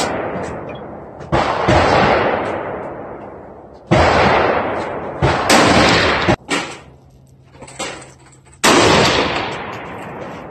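Rifle shots at a shooting range, about half a dozen spaced over several seconds, some close together in pairs, each with a long echoing tail that fades slowly.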